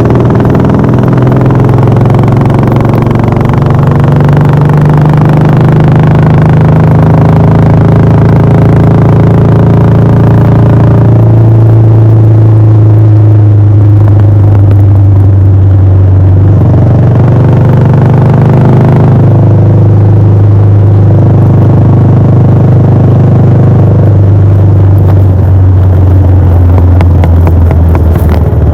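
Royal Enfield Bullet 500's single-cylinder four-stroke engine running through its exhaust on the move. The engine note is loud and steady, dipping in pitch and climbing back a few times as the throttle and speed change.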